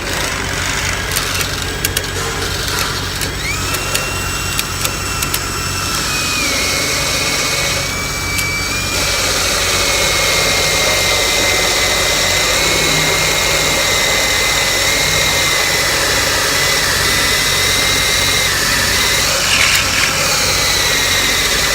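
Electric drill boring half-inch holes through steel tube, its motor whine sinking slowly in pitch as the bit loads up in the steel. A few sharp clicks come in the first few seconds.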